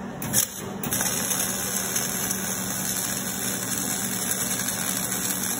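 Wire-feed (MIG) welding arc on steel. It catches in a couple of short starts about half a second in, then runs as a steady crackling hiss while a bead is laid.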